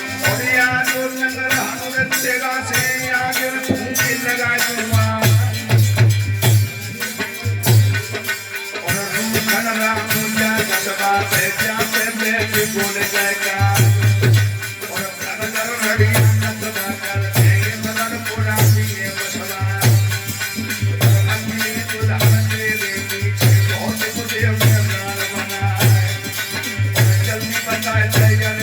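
Instrumental folk-music interlude: a low drum beats a steady rhythm under a shaker or rattle, with a melody over a held low drone. The drum beat is heaviest from about five seconds in and again from about fourteen seconds on.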